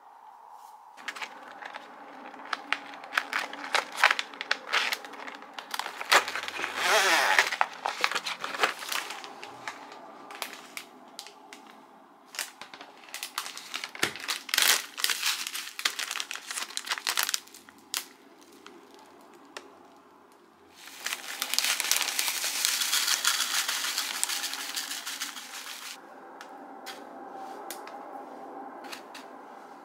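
Kitchen handling sounds: plastic packaging crinkling and rustling with scattered clicks and taps, and a continuous rustle lasting about five seconds past the middle.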